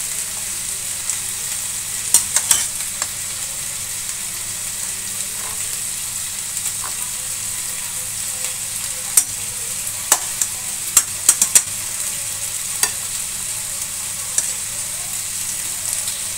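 Pot of vegetable broth at a rolling boil, a steady bubbling hiss. A metal skimmer clinks against the steel pot a few times, about two seconds in and again in a run of sharp clinks around the middle.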